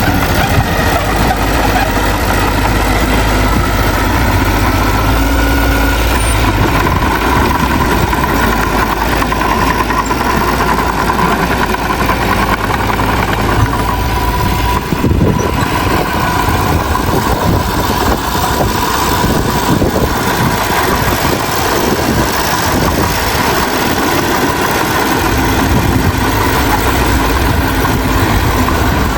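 Diesel engines of heavy earthmoving machinery running steadily and loud, with a deep rumble that eases a few seconds in.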